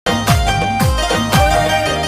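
Instrumental opening of a song: three drum hits about half a second apart, each dropping sharply in pitch, over a held chord.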